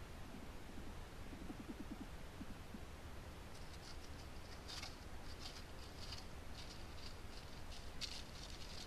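Pine marten walking over dry dead leaves: a run of short, soft crackling rustles that starts about three and a half seconds in and is loudest near the end, as it passes close by.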